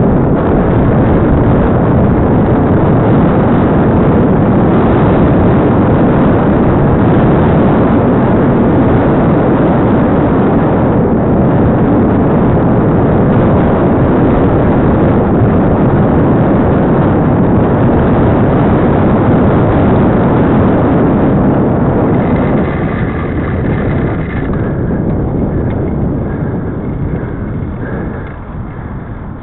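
Heavy wind buffeting on the microphone of a camera riding along on a moving bicycle. It is loud and steady, then eases off over the last few seconds.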